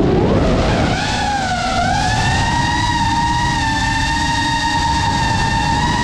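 FPV quadcopter's motors and propellers whining, the pitch dipping and climbing back in the first two seconds, then holding steady as the throttle evens out, over a rushing noise of wind and prop wash.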